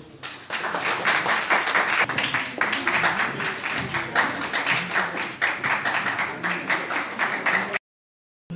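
Audience clapping, with voices in the crowd, cutting off suddenly near the end.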